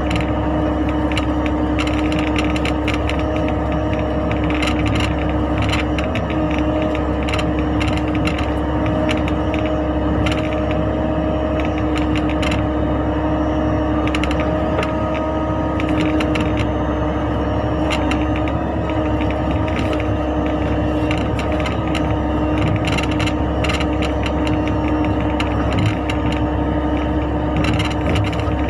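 Mini excavator's engine running steadily at constant speed, with frequent metallic clicks and clanks from the working machine.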